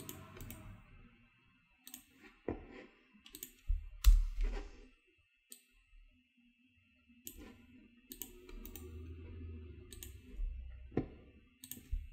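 About a dozen scattered, irregular clicks from a laptop's trackpad and keyboard keys as clips are right-clicked and deleted with the delete key, some with a low thud of handling; the loudest comes about four seconds in.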